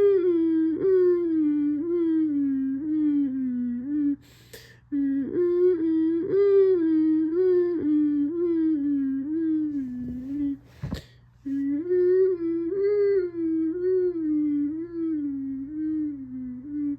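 Federal Signal Modulator II 8032B-C electronic warning siren sounding its Alt Wail: one tone with many overtones that slowly rises and falls in pitch while wobbling about one and a half times a second. It breaks off briefly twice, at about four and a half and eleven seconds in, each time with a sharp crackle.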